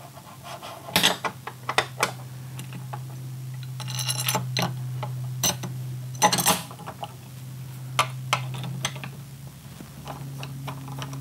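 Plastic door handle plates and latch clicking and knocking against an aluminum sliding door stile as they are fitted, with a rattling run of clicks about four seconds in and a sharp knock about six seconds in; a screwdriver starts turning a screw near the end. A steady low hum runs underneath.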